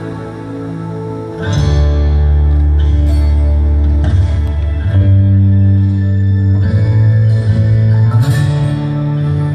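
Instrumental song intro: acoustic guitar chords strummed over held low notes, growing louder about a second and a half in.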